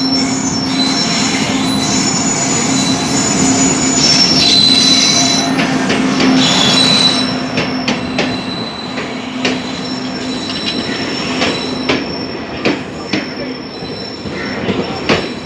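Passenger coaches of an express train running through a station at speed: a steady rumble of wheels on rail with high squealing from the wheels. After about seven seconds the noise drops and separate clacks of wheels over rail joints stand out.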